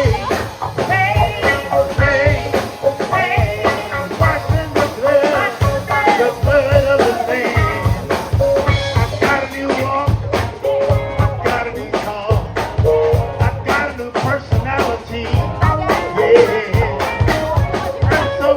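Gospel band playing, with singing over a steady drum beat and bass.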